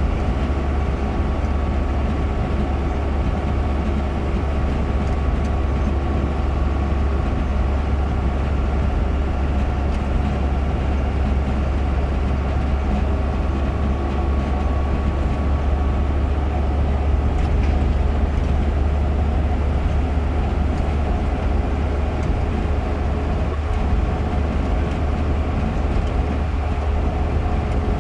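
Car cabin noise while driving on a paved highway: a steady low drone of engine and tyre noise that holds constant throughout.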